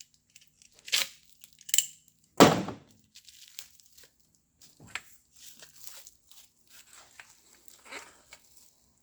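Plastic packaging wrap being torn and crinkled while a bundled 4-link tube is pulled free, with sharp handling clicks and one heavy thunk about two and a half seconds in.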